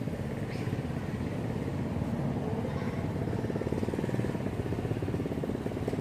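Steady low rumble of a small engine running at an even pace.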